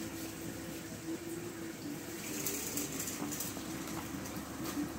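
Small plastic wheels of a toy doll's pram rolling over paving tiles, a continuous rumbling hiss with a few faint clicks.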